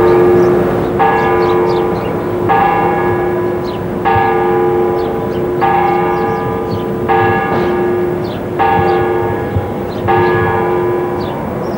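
Church bell tolling, struck at an even pace about once every second and a half, each strike ringing on over the lingering hum of the previous ones.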